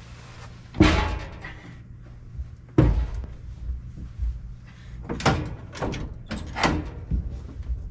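Bowling pinsetter pit board knocking and scraping against the pit as a man lying under it pulls himself out of an AMF 82-30 pit. There are several heavy bangs, the loudest about a second in and near three seconds in, each with a short ringing after it.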